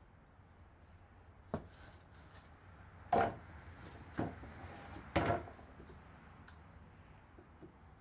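Plywood strips knocking on a wooden workbench as they are handled and set down: a light tap, then three louder wooden knocks about a second apart.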